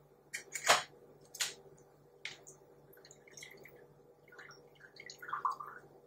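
Rotary diaphragm condensate drain pump sucking water and curd sludge up its suction tube, heard as faint gurgles and drips, mostly in the last few seconds. A few sharp clicks come first, the loudest about a second in.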